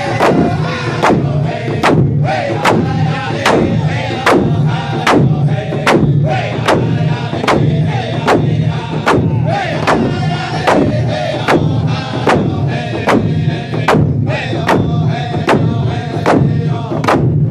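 Round dance song: a group of men singing together, each beating a hand-held rawhide frame drum in unison, a steady beat of about three strikes every two seconds.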